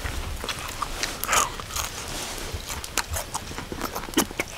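A person chewing crispy charcoal-grilled chicken skin: irregular crisp crunches, one louder crunch about four seconds in.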